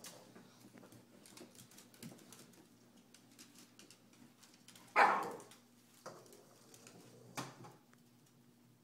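A small dog barks once, sharply, about five seconds in, and a shorter sharp sound follows about two seconds later. Faint clicking of dog claws on a hardwood floor runs between.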